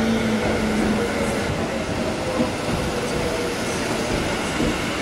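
Meitetsu electric express trains running into a station platform: steady rumble of wheels on rail, with a low steady hum that stops about a second in. No musical horn is sounded.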